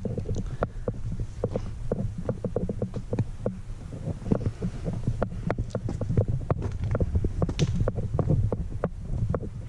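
Low, muffled rumble with many irregular soft knocks, several a second: handling and footstep noise picked up by a GoPro as it is carried along on foot.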